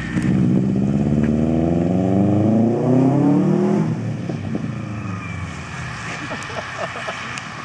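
Subaru WRX STI's turbocharged flat-four accelerating hard, its pitch rising steadily for about four seconds. Then the throttle lifts and the engine sound drops away and fades as the car pulls off.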